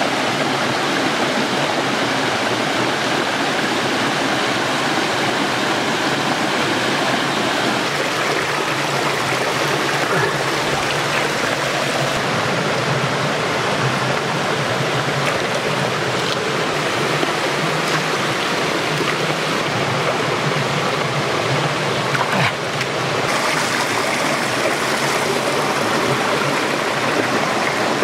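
Clear shallow stream running over a low mossy rock ledge: a steady sound of flowing water.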